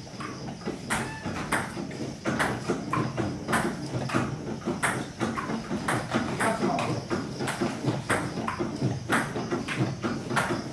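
Sharp, uneven clacks about twice a second over a steady low hum: the clatter of an elliptical trainer being pedalled and a table tennis ball being knocked about in a hard-floored room.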